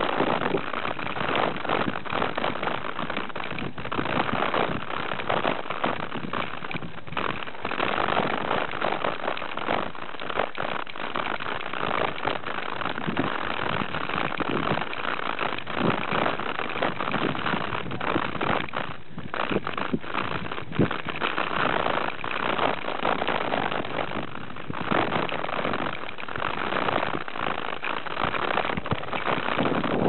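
Mountain bike riding dirt singletrack: a steady rush of wind and tyre noise with frequent small knocks and rattles over the bumps.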